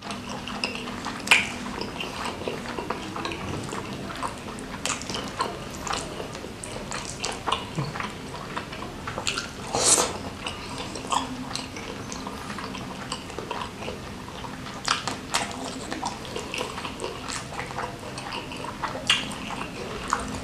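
Close-miked chewing of tender squid in chili sambal, with wet mouth smacks and clicks running on steadily; the loudest smack comes about ten seconds in.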